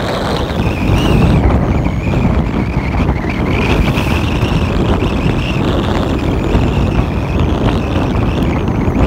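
Wind rushing over a phone's microphone held out of a moving car's window, over the steady hiss of tyres on a wet road.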